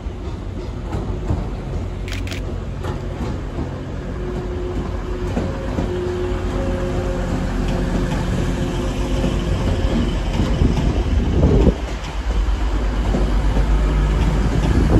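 TransPennine Express Class 185 diesel multiple unit, two units coupled, running along the platform: the rumble of its diesel engines and wheels on the rails grows louder as the train comes alongside.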